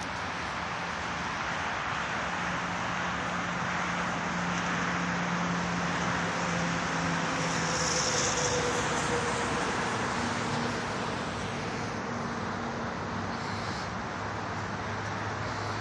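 Car engines idling with a low steady hum, over an even hiss of traffic and outdoor noise.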